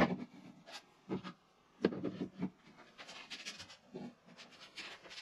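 Pieces of raw stock being handled and set down on a wooden workbench: a sharp knock at the start, then several softer knocks and rubbing.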